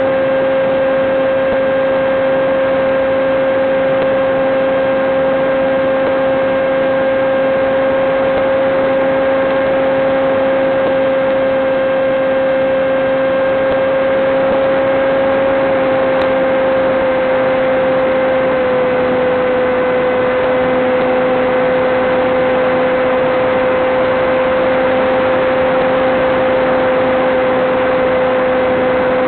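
Electric motor and propeller of a Teksumo flying wing running at a steady cruise throttle, a constant droning whine over a layer of hiss, heard through the onboard camera microphone over the analog video link. The pitch drops slightly about two-thirds of the way through, as the throttle eases off a little.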